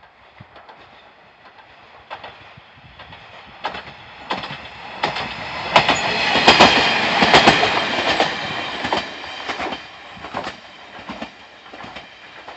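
KiHa 40 diesel railcar approaching, passing close by and running away, its wheels clicking over the rail joints. The sound builds, is loudest about six to eight seconds in, then fades.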